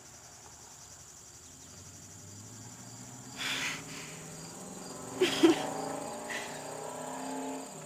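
Crickets chirping steadily in the background, with short bursts of soft laughter about three and a half and five seconds in.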